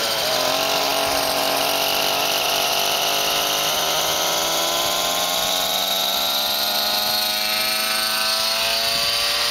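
Nitro (glow-fuel) engine of an RC helicopter running at a steady high whine, its pitch slowly rising as the rotor spools up toward lift-off.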